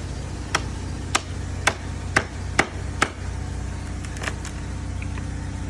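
Hammer blows on an old wooden chair, knocking its plywood panel loose: six sharp strikes about half a second apart, then a pair of lighter ones about four seconds in. A steady low hum runs underneath.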